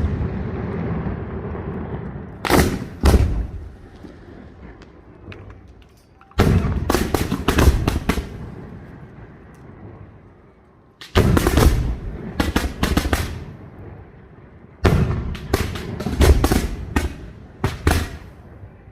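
Aerial firework shells bursting in a castillo display: four volleys of rapid sharp bangs, starting about every four seconds, each fading into an echoing rumble before the next volley.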